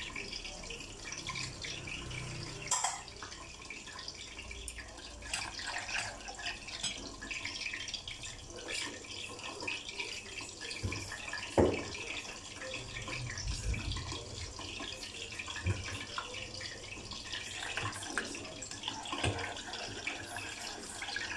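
Water poured from a bowl into a pot of tomato-based sweet-and-sour sauce at the start, then the sauce heating in the pot with a steady crackling hiss, broken by a few sharp clicks, one loud one near the middle.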